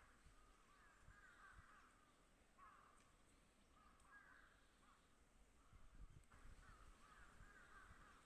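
A bird calling faintly outdoors, short rough calls repeated every second or so.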